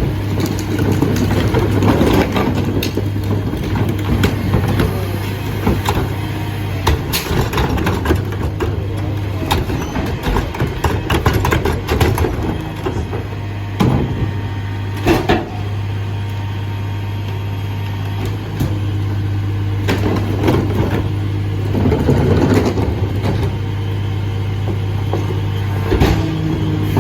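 Dennis Eagle AirFlo rear-loader garbage truck's diesel engine running steadily at idle, with scattered clanks and knocks. The engine note shifts up near the end.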